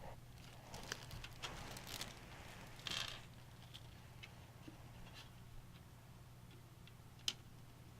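Faint handling noises of computer parts and screws during a PC build: scattered light clicks, scrapes and rustles, with one sharp click near the end, over a steady low hum.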